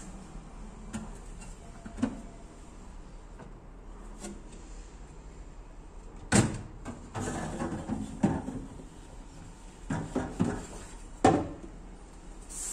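Doors of a built-in refrigerator being opened and closed: a few light knocks, then a loud thud about six seconds in, more handling clunks, and further thuds near the end.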